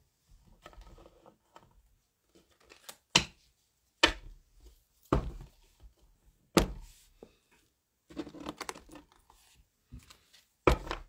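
Oracle card deck being shuffled and handled: about five sharp knocks, four of them coming roughly a second apart and one near the end, with faint card rustle in between.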